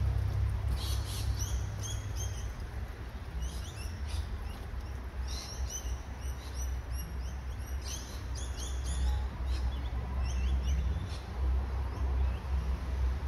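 Small birds chirping: quick runs of short, high notes that come several times, over a low steady rumble.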